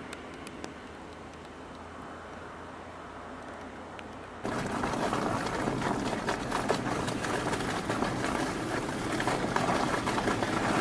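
Steady outdoor roadside noise of highway traffic and wind, a dull rushing rumble that jumps abruptly louder about four and a half seconds in and stays loud, with a fine crackle over it.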